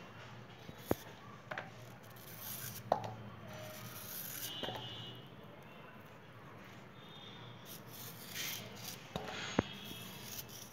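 Kitchen knife slicing a raw purple yam into fry strips by hand over a stainless steel bowl: faint scraping and rubbing of the blade through the flesh, with a few short, sharp clicks.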